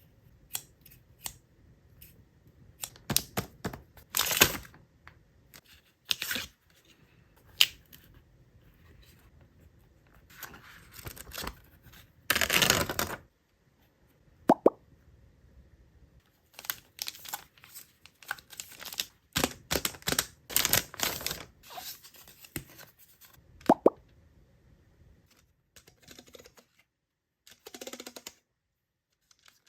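Unboxing sounds of small stationery items: packaging rustling and crinkling, clicks and taps of small objects being handled and set down, and a longer tearing rustle about twelve seconds in. Two brief ringing taps come near fifteen and twenty-four seconds.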